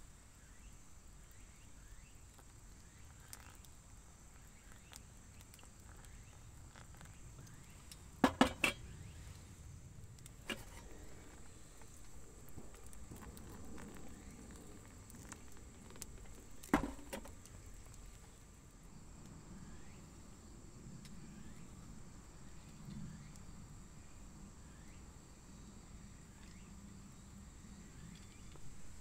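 Quiet outdoor ambience with a faint steady high-pitched tone, broken by a quick run of three sharp knocks about eight seconds in and single knocks about two and eight seconds later.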